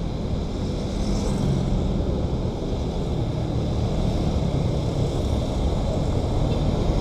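Passing road traffic, motorcycles and cars, as a steady low rumble muffled by the camera's covered microphone. A coach bus draws near toward the end.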